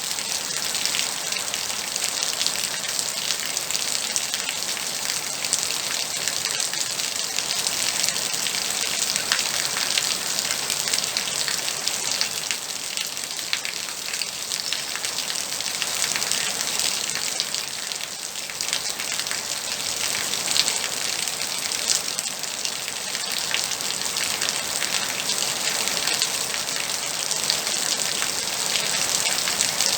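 Moderate rain falling steadily: a dense, even patter of countless drops with no let-up.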